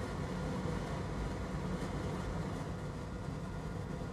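Steady low background hum with no distinct events, like a fan or ventilation running.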